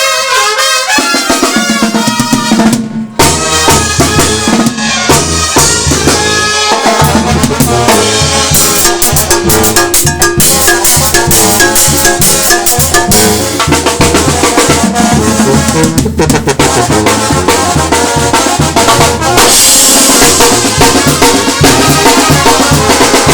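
Live Mexican banda music: trumpets and other brass playing over a steady low bass line and driving drums, with a brief break about three seconds in.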